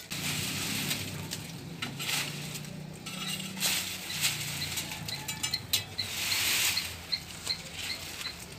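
Rustling, scraping and sharp clicking knocks as a man climbs a wooden ladder and handles a plastic water tank at its top. A faint high chirp repeats about twice a second in the second half.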